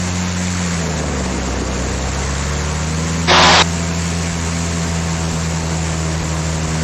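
The Cessna T310R's twin turbocharged six-cylinder piston engines running at run-up power, with a steady engine drone. The engine note dips slightly about a second in and comes back up, as in a magneto check. A short loud hiss breaks in about three and a half seconds in.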